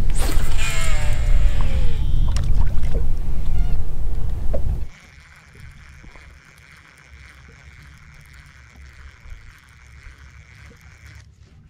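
Boat running on the water, a loud low rumble of motor and wind, with a short falling cry over it near the start. About five seconds in it cuts off suddenly to a much quieter steady hum.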